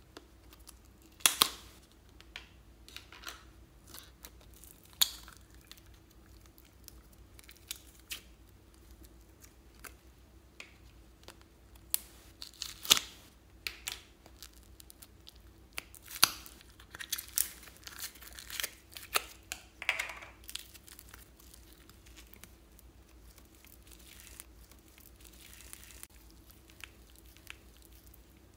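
Small plastic slime tubs being handled and opened: scattered sharp plastic clicks and crinkling, busiest in the middle, over a faint steady hum.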